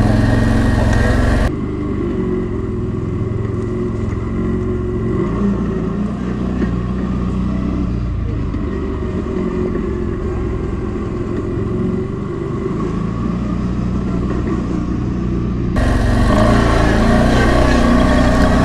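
ATV engine running while riding, with some revving. It sounds duller and muffled from about a second and a half in, and clears again near the end.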